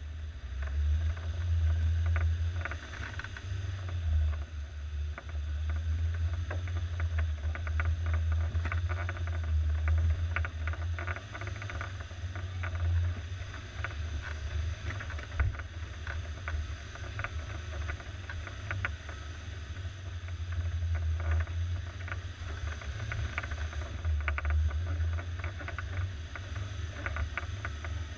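Suzuki SJ413's 1.3-litre four-cylinder engine running steadily at low speed as the 4x4 crawls over rough, rooty ground. The engine is the loudest thing, with scattered knocks and rattles from the body and running gear over the bumps.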